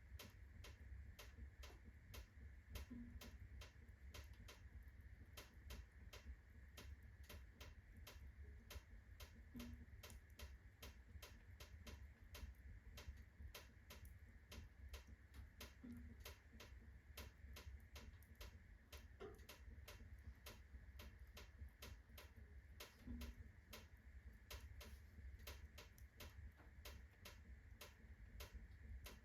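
Birch-wood fire of unsplit rounds crackling at full burn in a fireplace: quiet, dense irregular snaps and ticks over a low steady rumble.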